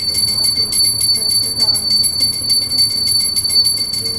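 Small brass puja hand bell rung rapidly and without pause, a steady high ring over a quick, even rattle of strikes.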